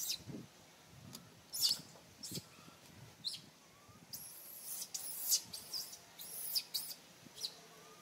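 A run of short, high-pitched chirps and squeaks from animals in the trees, sparse at first and coming thick and fast in the second half, some of them dipping in pitch.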